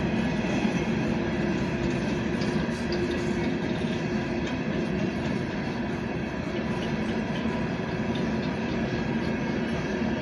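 A train in motion, running steadily: a continuous rumble of the cars on the rails with a faint steady hum above it.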